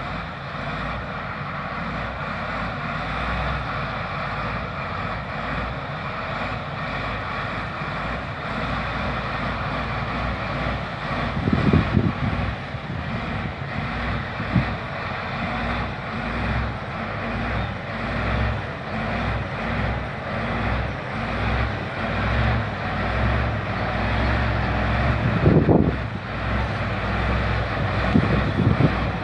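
LiuGong crawler bulldozer working, its diesel engine running steadily. Short louder bursts come about twelve seconds in and again twice near the end.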